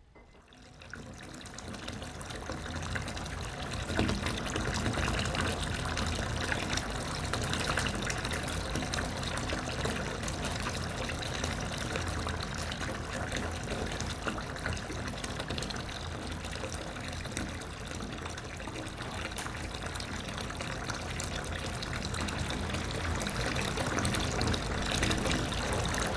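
A steady rushing, watery noise that fades in from near silence about a second in and holds, growing slightly louder near the end.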